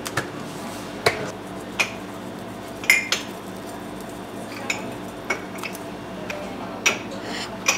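Scattered light clinks and taps of porcelain crockery and metal utensils, about nine in all, over a steady background hum.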